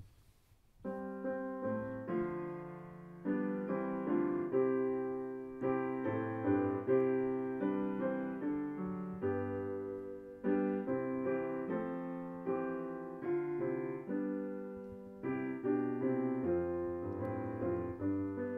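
Piano playing a hymn tune in full chords, struck note by note and fading between strokes, starting about a second in: the introduction before the singing.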